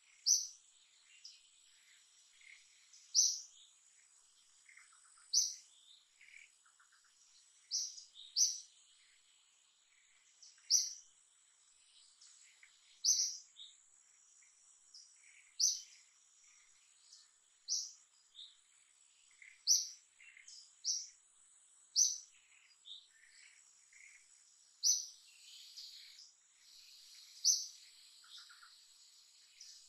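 A bird calling in short, sharp high notes, repeated every two to three seconds and sometimes doubled. Under it run a steady high insect hum and fainter chirps from other birds.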